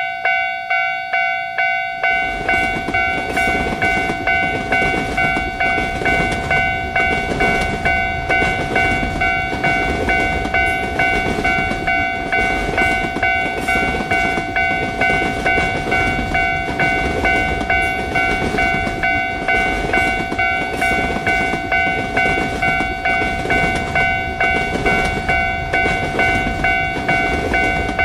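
Japanese level-crossing warning bell ringing its repeated "kan-kan" about twice a second. About two seconds in, the clattering "gatan-goton" rumble of a passing train joins it.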